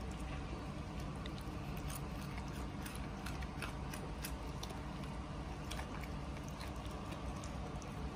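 A puppy crunching and chewing a bitten-off piece of raw carrot: irregular crisp crunches over a steady low background hum.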